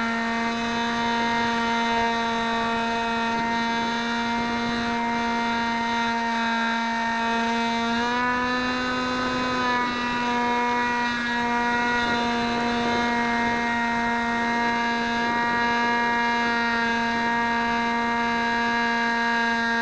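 A radio-controlled model aircraft's motor and propeller, heard from its onboard camera as a steady whine. The pitch rises about eight seconds in as the throttle opens, then drops back about two seconds later.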